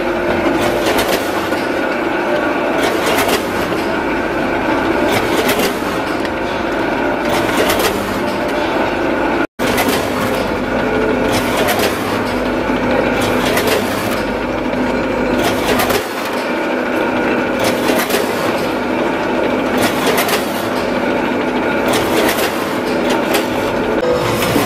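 Multihead combination weigher running, a steady machine hum with the metallic clatter of its stainless weigh-hopper gates snapping open and shut about every two seconds, often in pairs, as broccoli pieces drop through.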